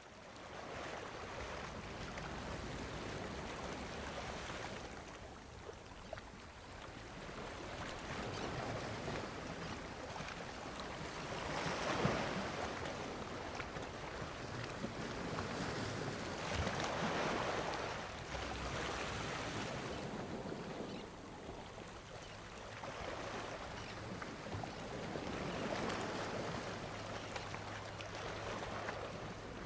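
Small sea waves washing onto a sandy shore, swelling and fading every few seconds, with some wind noise.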